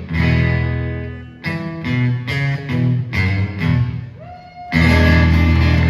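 Acoustic blues guitar playing an instrumental fill between vocal lines: a run of single plucked notes, one bent upward, then a loud full chord struck near the end and left ringing.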